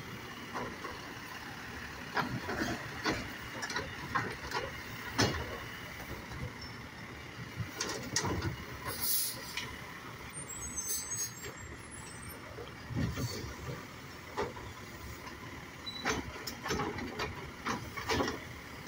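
Automated side-loader garbage truck working: the engine runs under irregular clanks and knocks from the lifting arm and the plastic trash carts, and the air brakes hiss once about halfway through.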